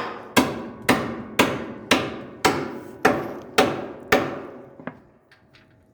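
Hammer blows, eight steady strikes about two a second, each ringing out briefly, then a lighter tap and a few faint ticks near the end.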